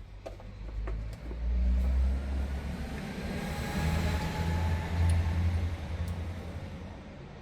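Low rumble of a passing motor vehicle, swelling and then fading away.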